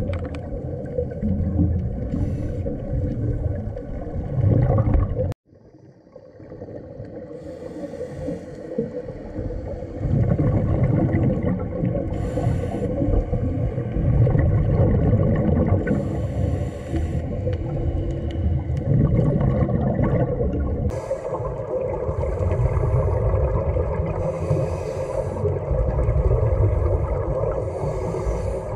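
Underwater camera sound on a scuba dive: a steady, muffled low rumble and hum. Every few seconds comes a hissing burst of exhaled bubbles from a diver's regulator. The sound cuts out abruptly about five seconds in and fades back up.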